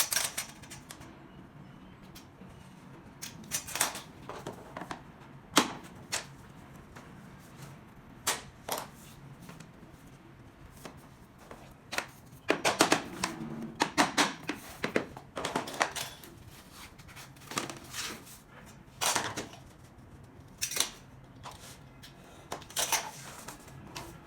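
Irregular sharp knocks and clicks as SPC stone-plastic floor planks are worked and tapped into place, with a quick run of knocks about halfway through.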